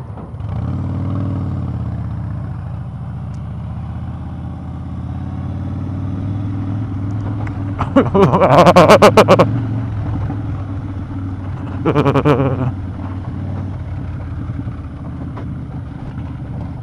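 Harley-Davidson V-twin motorcycle engine running at low road speed, with two loud stretches of rapid clattering and rattling, the longer about halfway through and a shorter one a few seconds later, as the bike jolts over cobblestones.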